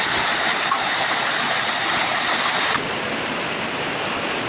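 Steady rushing noise of a heavy rainstorm and running water. About three seconds in it cuts abruptly to a duller, slightly quieter rush.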